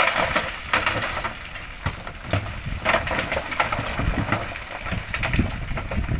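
Load of rocks sliding and tumbling out of a dump truck's raised tipper bed: a continuous rattling rumble full of sharp clattering knocks, with the truck's engine running underneath.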